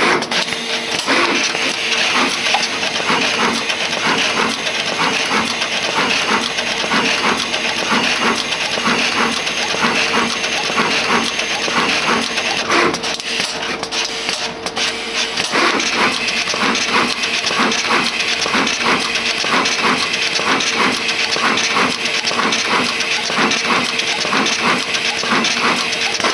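SMD pick-and-place machine running: fast, irregular clicking of its placement heads and feeders over a steady machine hum and a hiss of air.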